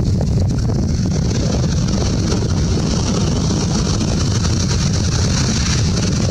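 Steady wind rumble on the microphone over the hiss of surf washing up the beach.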